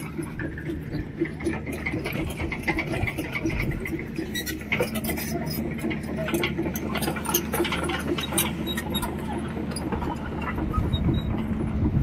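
Footsteps crunching and scuffing on loose stones and gravel, with many irregular clicks, over a steady low hum.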